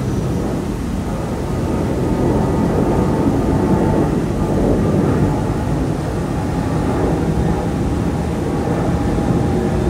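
Jet airliner flying low overhead on its approach to land: a loud, steady engine rumble with a faint whine on top, fading a little near the end.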